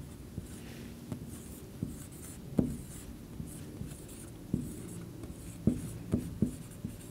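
Felt-tip marker writing on a whiteboard: a string of short strokes and light taps as figures are written, a few of them louder a little past the middle and near the end.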